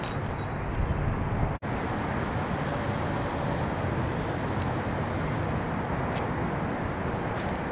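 Steady outdoor background of road traffic rumble and wind on the microphone, cutting out for an instant about a second and a half in.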